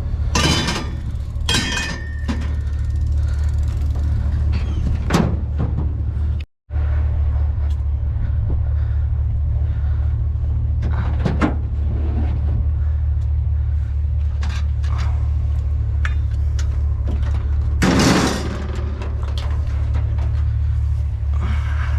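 A vehicle engine idling steadily under scattered knocks and clunks of objects being handled or doors shutting, the loudest clatter coming near the end.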